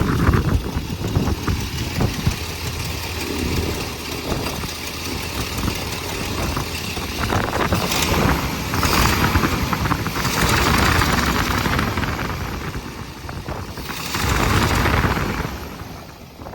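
Toyota Land Cruiser FJ60's 2F inline-six petrol engine running after a cold start, with its exhaust leak repaired; the level swells and eases a few times.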